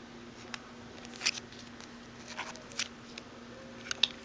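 Faint, irregular small clicks and taps, about seven or eight over a few seconds, over a steady low hum.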